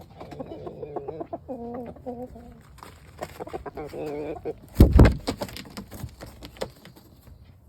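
Chickens clucking in two runs of calls, with a loud, short thump about five seconds in, followed by a few light clicks.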